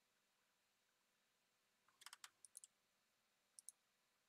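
Faint computer mouse clicks: a quick run of clicks about halfway through, another pair just after, and a last pair near the end.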